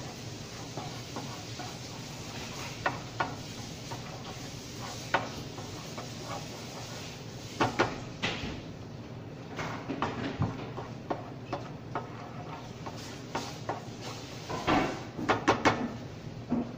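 Wooden spoon stirring and knocking against a nonstick frying pan of caramelizing sugar, with a few sharp knocks scattered through and a quick cluster near the end, over a steady low hiss.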